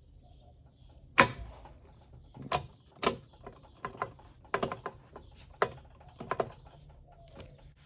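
Irregular sharp knocks and clicks from hands-on work on an NV3500 manual transmission, about a dozen over several seconds, the loudest about a second in.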